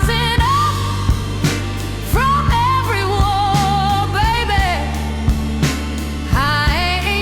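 A slow soul-blues ballad: a steady drum beat and bass under long, bending melody notes held with a wavering vibrato, likely a singer's wordless vocal line.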